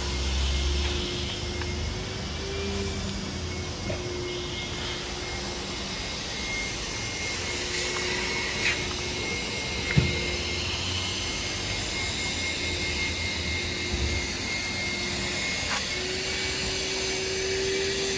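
An electric motor running steadily, a hum with a thin high whine and a background hiss, broken by a couple of light knocks about halfway through.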